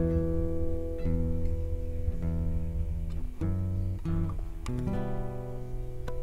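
Acoustic guitar music, strummed and plucked, with chords changing about once a second.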